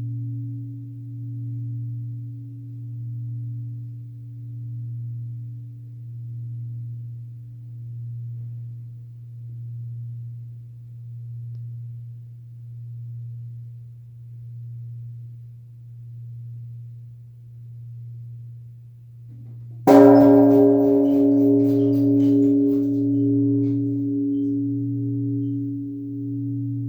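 Japanese temple bell (bonshō). Its low hum fades slowly, swelling and dipping about every second and a half. About twenty seconds in the bell is struck again, a loud strike that rings on in several tones.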